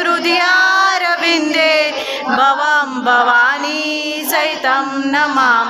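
Female voice singing a Hindu devotional hymn as a slow, gliding melodic chant.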